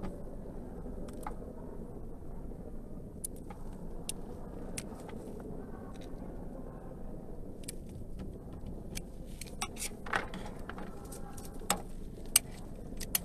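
A knife shaving and scraping a bar of soap: scattered small clicks and scrapes over a steady background hum, busier in the last few seconds, with one sharp click near the end.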